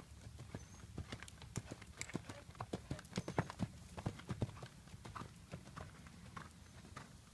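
Horse's hoofbeats cantering on arena sand: a run of short thuds, closest together and loudest in the middle, then thinning out as the horse moves away.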